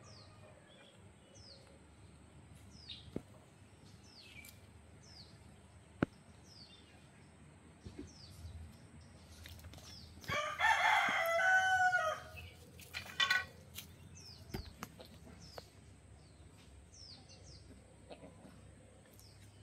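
A rooster crows once, loud and about two seconds long, starting about ten seconds in, followed by a shorter call about three seconds later. Small birds chirp throughout in short, falling notes.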